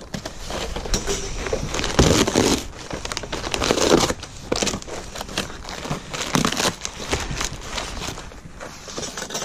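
Cardboard box being slit with a utility knife, then torn and folded back by hand, with the crinkle and crunch of honeycomb paper packaging. Irregular rustling and tearing, with louder bursts about two and four seconds in.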